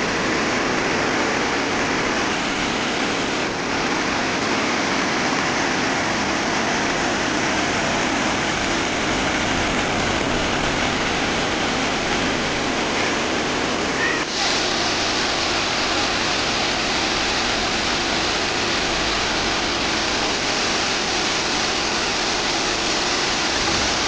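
Waterfall and rapids: steady rushing of water pouring over rocks into a pool.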